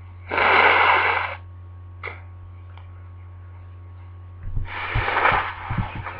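A person with a cold sneezing once, a loud, sharp burst of breath about a quarter-second in. About four and a half seconds in comes a longer, quieter stretch of breathy noise with rustling knocks. A steady low hum runs underneath.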